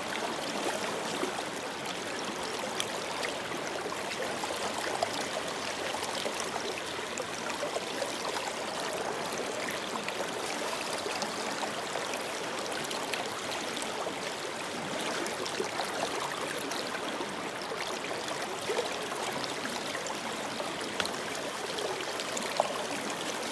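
Creek water rushing steadily over and through a plastic gold-prospecting sluice box set in the stream, the sluice running well. A brief knock near the end.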